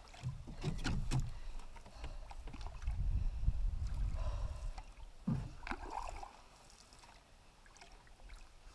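Canoe being paddled: paddle strokes and a few knocks against the hull, with low rumbling through the first five seconds, then quieter for the last few seconds.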